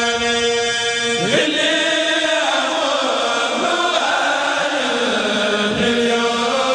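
A kourel, a group of men, chanting a khassida, a religious poem in Arabic, together. A long held note breaks about a second in, and the voices glide into a new melodic phrase.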